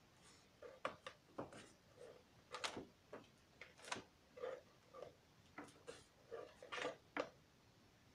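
A plastic cable reel's drum being turned by hand, giving a faint series of irregular clicks and rattles.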